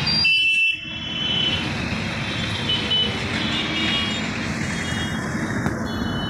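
Busy street traffic: a steady mix of vehicle engines and tyre noise on a wet road.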